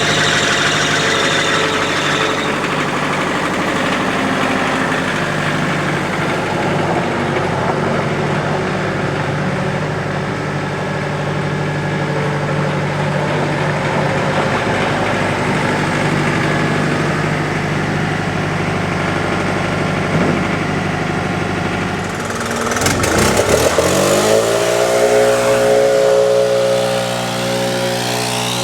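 RK 55 compact tractor's diesel engine running steadily under load, dragging a land plane. About 23 seconds in, an engine revs up quickly and holds a higher, steady pitch.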